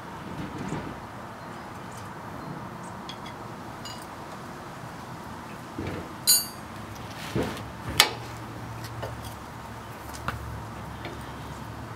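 Hand tools clinking and knocking against the Jeep's suspension metal as a shock is fitted. A few separate sharp knocks: a ringing metallic clink about six seconds in, followed by a couple of sharper knocks.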